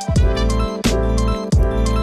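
Background music with a steady drum beat and sustained instrumental chords.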